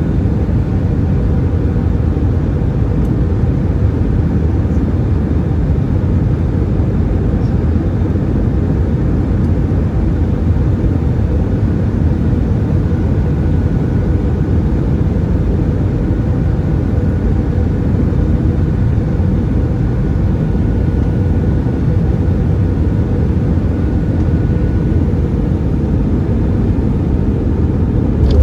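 Steady cabin noise of an Airbus A320-200 with CFM56 engines in flight: a deep, even rumble of engines and rushing air, with a faint steady hum through it.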